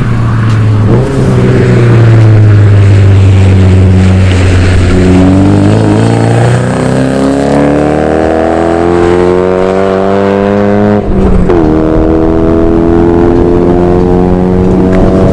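Car engine under hard acceleration: revs hold steady at first, then climb for several seconds. A gear change about 11 seconds in drops the revs, and they rise again.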